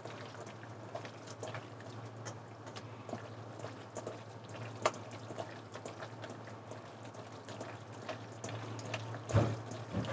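Raw sliced beef being mixed and squeezed by hand in its marinade, working the seeped-out liquid back into the meat. Soft, irregular wet squelches and small slaps come over a low steady hum.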